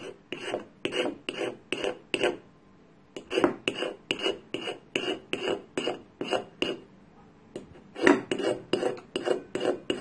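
Knife blade scraped lightly along a magnesium fire-starter rod in short, repeated strokes, about two or three a second, each with a slight metallic ring, pausing briefly twice. The light strokes shave magnesium dust onto cotton tinder before sparks are struck.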